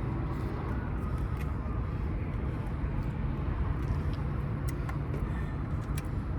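Steady low rumble of highway traffic, with a few faint ticks.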